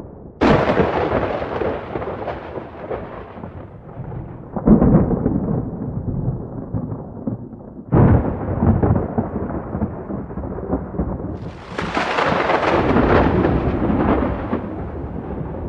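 Wind gusting across the microphone: a loud, noisy rumble that surges suddenly four times and dies away over a few seconds after each gust.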